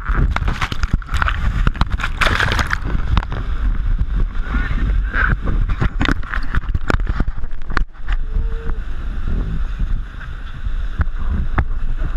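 White-water rapids rushing and splashing against an inflatable raft, with a heavy low rumble of wind and water buffeting the raft-mounted camera's microphone. Many sharp knocks and slaps of water and paddles hitting the boat break through, with a brief dip about eight seconds in.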